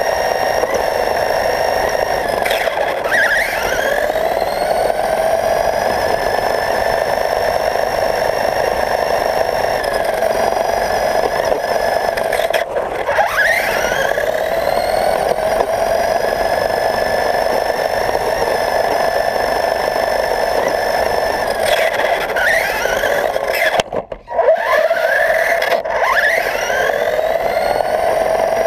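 Radio-controlled car's motor and drivetrain whining steadily at a high pitch, the whine sweeping sharply up from low four times as the car speeds up again.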